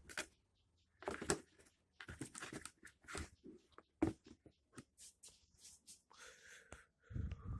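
Handling noise as a pair of sneakers is turned over close to the microphone: irregular rustles and light clicks, with a sharper click about four seconds in and a deeper, louder rumble of handling near the end.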